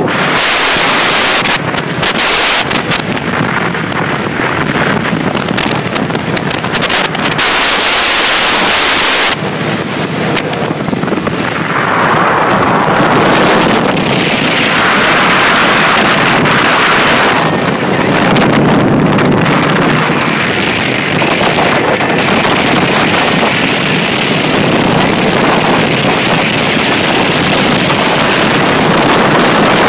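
Loud wind buffeting on the microphone of a Kawasaki Vulcan motorcycle at road speed, with the bike's engine and road noise underneath; the buffeting gets louder about twelve seconds in.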